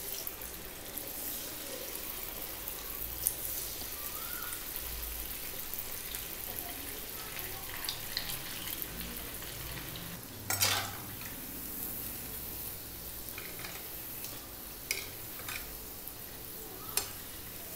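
Moong dal bonda batter balls deep-frying in hot oil in a kadai: a steady sizzle with scattered small pops, and a louder burst of crackling about ten and a half seconds in.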